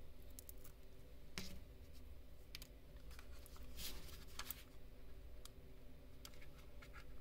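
Faint, scattered small clicks and scratches of a fingernail picking and pressing at the plastic underside of a Tracer wireless computer mouse and its stick-on glide pads.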